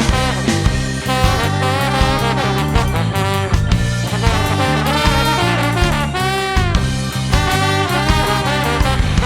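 A live ska band plays an upbeat instrumental: a horn solo carries a bending, melodic line over drums, bass, guitar and organ.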